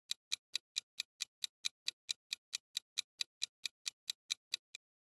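Fast, even clock-like ticking, about four and a half ticks a second: a countdown-timer sound effect marking the time to guess the answer. It stops just before the end.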